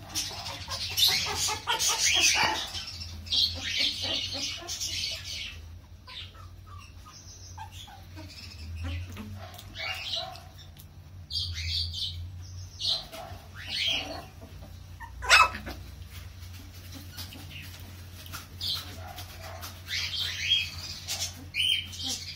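Very young Pomeranian puppies whimpering and squeaking in high-pitched cries that come in clusters on and off, with one sharp knock about two-thirds of the way through.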